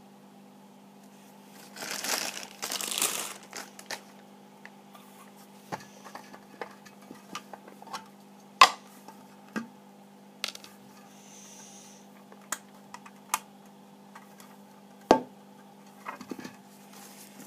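Plastic packaging bag crinkling for a couple of seconds, then scattered clicks and knocks as the clear plastic tank and its black plastic base are handled and set down on a wooden desk, two of the knocks much louder than the rest. A faint steady hum sits underneath.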